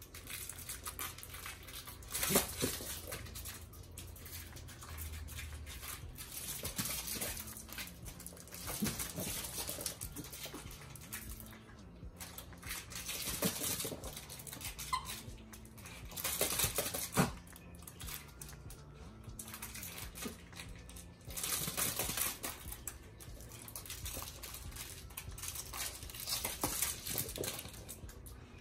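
A small dog playing with plush toys on a rug: irregular scuffling and mouthing sounds in bursts, the loudest about two seconds in and again around seventeen seconds.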